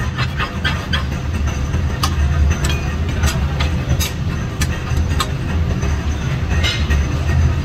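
Light, irregular metallic clinks and taps of a hand tool and steel rod against flat steel leaf spring blanks, over a steady low rumble.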